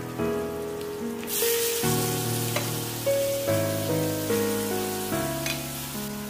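Background music of sustained notes changing about once a second. Under it, from about a second in, a hiss of food sizzling in a hot wok as shredded Chinese cabbage and fish cake go into the frying chilli paste, with two short taps.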